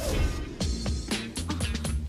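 Upbeat promo music with a steady drum beat.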